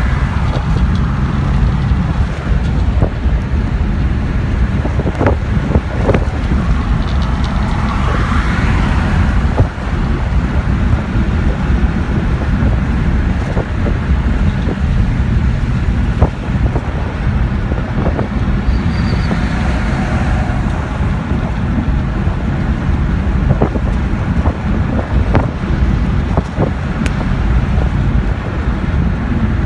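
Steady, loud low rumble of engine, tyres and road heard inside the cabin of a 1960 Plymouth Belvedere cruising at highway speed, with wind noise. Two brief rushing swells come about eight seconds in and again about twenty seconds in.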